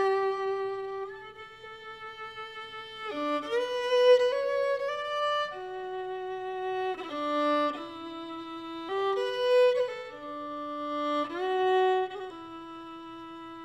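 Background music: a slow melody of long held notes that change every second or two, sometimes two notes together.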